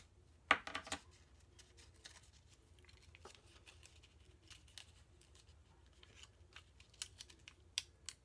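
Faint crackles and small clicks of plastic-backed self-adhesive rhinestone gems being peeled off their backing and pressed onto paper, with a quick cluster of sharper clicks about half a second in.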